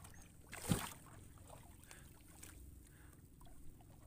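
Faint water lapping against a small wooden fishing boat's hull, with one short burst of noise a little under a second in and a few light knocks.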